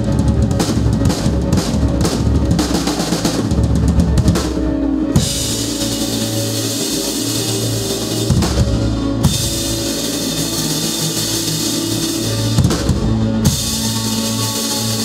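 Live rock band playing, with the drum kit loud and close: kick, snare and cymbals over bass and guitar. The first few seconds are a run of separate accented hits; then a steady cymbal wash takes over, broken by brief stops about nine and thirteen seconds in.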